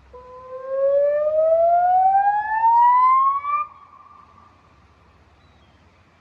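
Electronic warning siren sounding through Bosch LBC-3406 public-address loudspeakers during a warning activation: a single loud whoop tone that climbs steadily in pitch for about three and a half seconds, then cuts off and leaves only a short fading echo.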